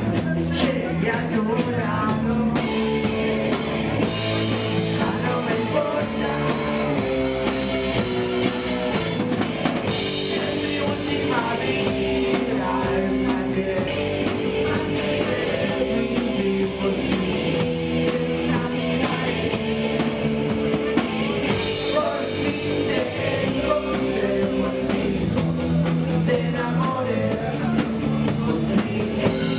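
Live punk rock band playing: a male singer's vocals over a strummed electric guitar and a drum kit, loud and steady.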